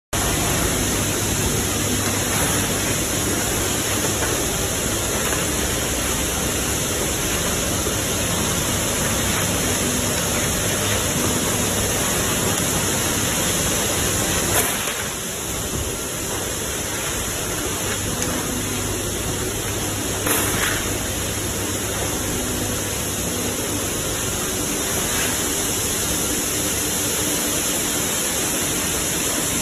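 Steady factory noise from bearing-handling machinery: vibratory bowl feeders and conveyor lines running with a dense, even rattle of steel ball bearings and a faint low hum. Two brief clicks, one about halfway through and one a few seconds later.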